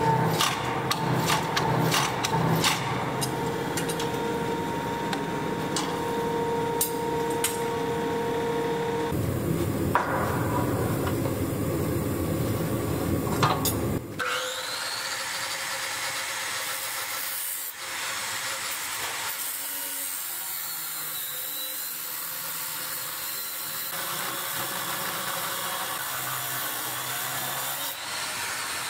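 A forging press running with a steady hum, with sharp clicks in the first few seconds as its die squeezes a glowing steel billet. About 14 seconds in, an angle grinder spins up with a rising whine and then grinds steel with a steady hiss.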